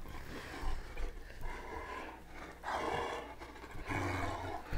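Great Dane play-growling three times in rough bursts of under a second each while tugging on a ring toy.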